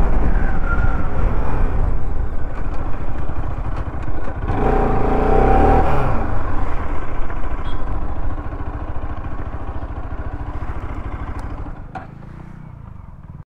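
Motorcycle engine running with wind rushing past as the bike is ridden along a road. It grows quieter over the last few seconds.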